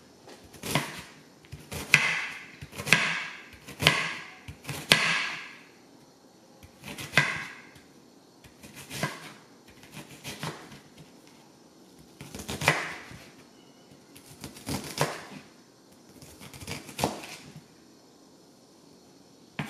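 Chef's knife chopping a yellow onion on a wooden cutting board, the blade knocking the board in separate strokes. The strokes come about one a second at first, then every second or two.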